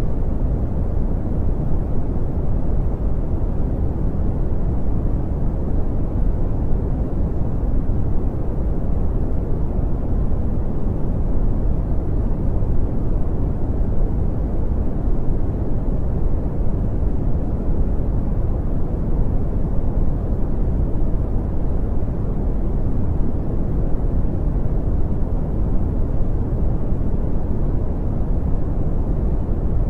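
Brown noise: a steady, deep rumbling hiss with most of its weight in the low end, unchanging throughout.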